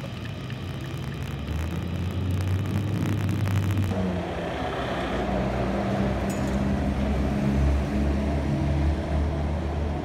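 Low, steady road-vehicle engine rumble. About four seconds in the sound changes abruptly to roadside traffic, with vehicles driving past.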